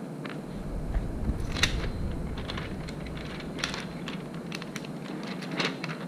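Puffy stickers being peeled from their backing sheet and pressed onto a paper notebook page: scattered small crackles and clicks, with a soft low bump about a second in, over a steady background hum.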